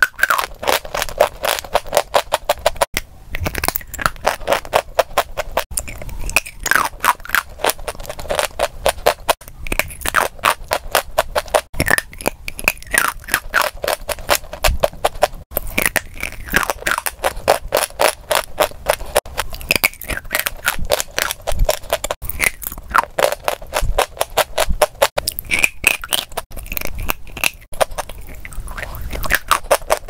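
Close-miked biting and chewing of a block of sawn natural chalk: dry crunching, one crunch closely following another.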